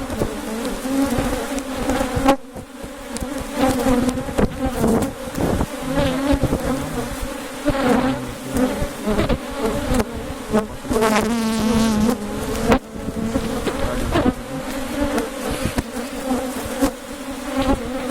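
A colony of honeybees buzzing loudly and steadily around an opened hive box, with frequent light knocks as frames are handled. About two-thirds through, one bee buzzes closer with a wavering pitch.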